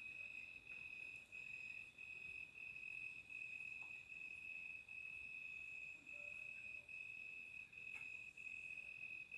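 A cricket calling at night: one steady high-pitched trill, broken into pulses about two a second.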